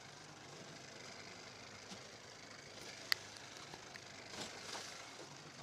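Water washing against the hull of a small aluminum jon boat rocking in choppy swells, with one sharp click about three seconds in and a few louder swishes near the end.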